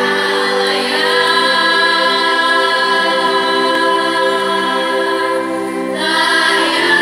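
Children's and youth choir singing long held chords, with a new phrase starting about six seconds in.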